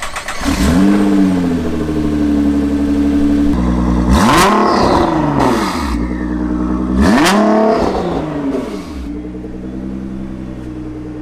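Nissan GT-R R35's twin-turbo V6 flaring up just after starting on a freshly replaced battery, then running at a fast idle. It is revved twice, each rev rising and falling, and then settles to a lower steady idle near the end.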